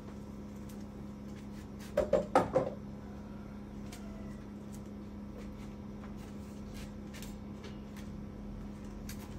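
A quick clatter of about four hard knocks about two seconds in, as handled power-tool bodies knock against one another, over a steady low hum.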